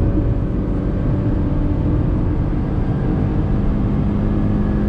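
Tata Punch's 1.2-litre naturally aspirated three-cylinder petrol engine pulling under full acceleration in third gear, heard from inside the cabin, its pitch climbing slowly along with road rumble.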